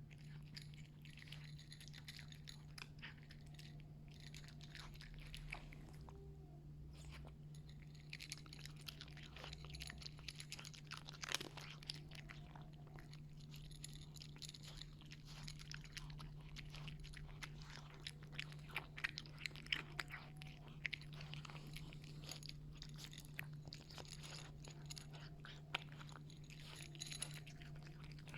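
Domestic cat chewing and crunching its food: many short, quick crunches, with a steady low hum underneath.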